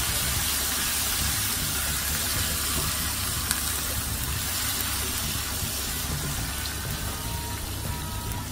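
Frozen minced onion sizzling in hot spiced oil in a frying pan as it is stirred with a wooden spatula: a steady sizzle that eases a little as the pan cools.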